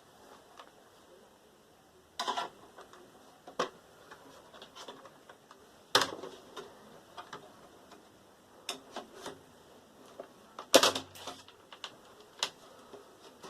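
Irregular clicks, taps and knocks from parts of a desktop computer tower being handled and worked on during disassembly. There are louder clatters about two seconds in, around six seconds, and near eleven seconds.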